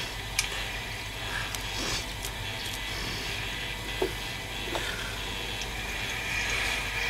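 A few scattered scrapes and clicks of a hand asparagus gouge cutting green asparagus spears at the soil and the cut spears being handled, over steady background noise.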